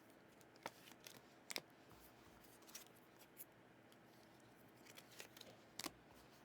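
Near silence broken by a few faint, sharp clicks and snips of trading cards and packs being handled.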